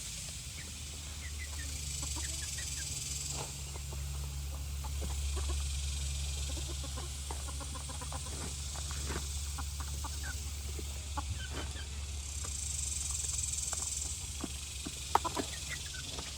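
Chickens clucking, short calls scattered throughout, over a steady low rumble.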